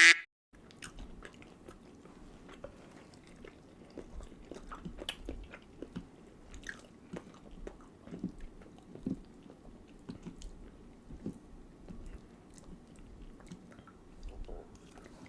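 Close-miked eating: chewing and biting, with scattered small wet clicks and mouth noises.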